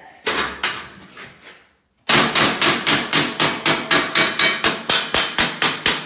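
Body hammer striking a sheet-metal patch panel to straighten its bent edge. A few scattered blows are followed, after a brief pause, by a steady run of quick taps, about five a second.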